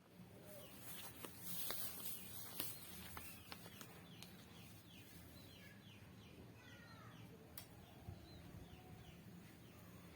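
A bird calling: a run of short, quick falling chirps, about three a second, through the middle of the clip, with a few faint clicks before it.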